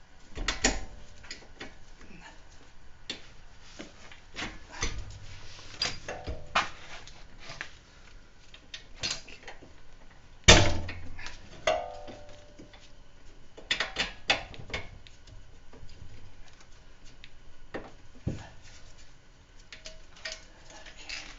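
Irregular metallic clinks and knocks of hand tools and parts being handled while reassembling a car's rear wheel hub, with one louder knock about halfway through.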